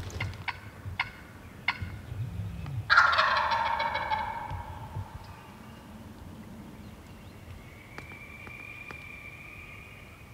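A wild turkey gobbler gobbles once, loudly, about three seconds in: a rattling call that fades away over about two seconds. A few short sharp notes come before it, and a faint steady high tone comes near the end.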